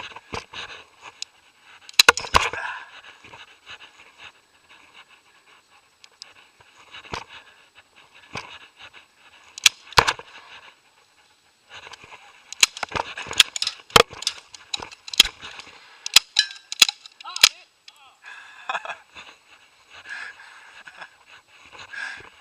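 Airsoft guns firing: sharp single cracks at irregular intervals, then a quicker, uneven string of shots in the second half.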